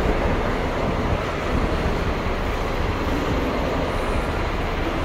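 Steady low rumble of diesel bus engines running, with no distinct starts, stops or knocks.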